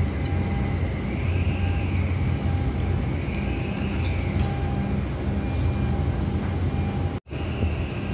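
Steady low drone of heavy machinery with a humming tone, and a higher whine that rises and falls twice. The sound drops out for an instant near the end.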